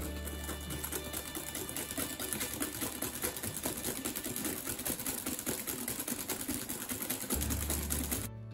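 Wire balloon whisk beating egg into a runny cake batter in a glass bowl: a fast, continuous clatter of the wires striking and scraping the glass, stopping abruptly near the end.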